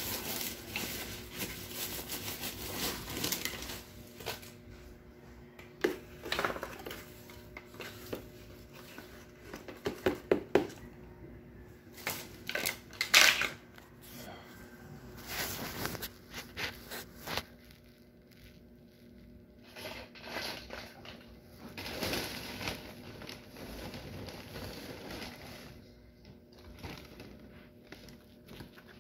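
Loam potting soil being scooped and poured into a plastic pot around a cutting: irregular crunching and rustling of soil with sharp clicks and knocks of the plastic scoop and pot, the loudest knocks in a cluster about halfway through.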